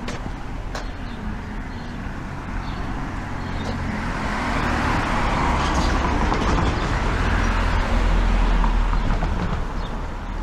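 A car driving past: its engine and tyre noise swell over several seconds, peak about eight seconds in, then begin to fade.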